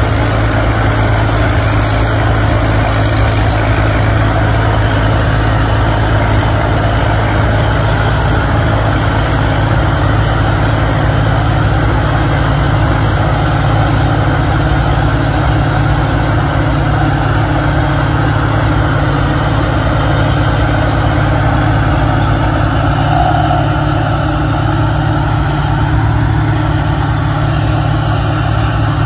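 Rice combine harvester's 270-horsepower Hino diesel engine running steadily under load while the machine cuts and threshes rice, with a thin high whine that fades out after about twenty seconds.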